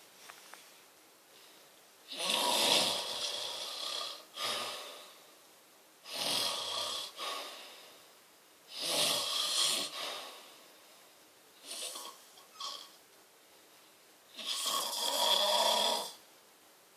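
A person snoring loudly: four long snores of one to two seconds each, spaced about three to four seconds apart, with a weaker, shorter snort between the third and fourth.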